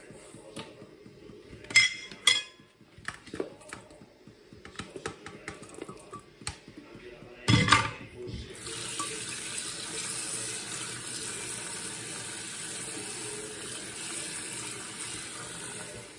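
A steel pot knocking against a stainless steel sink a few times, the loudest clank about seven and a half seconds in. Then tap water runs steadily into the pot of chicken pieces from about eight and a half seconds on.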